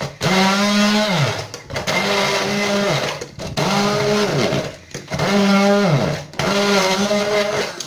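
Braun immersion hand blender crushing ice with lemon juice, run in about six short pulses of roughly a second each; the motor hum holds steady while pressed and falls in pitch as it winds down after each release.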